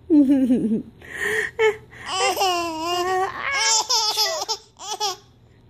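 An eight-month-old baby laughing in a series of high-pitched, squealing bursts, the longest about two seconds in, after a brief lower falling voice at the very start.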